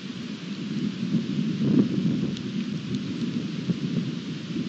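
Thunder rumbling, swelling in the first couple of seconds and loudest a little under two seconds in, over a steady hiss of rain.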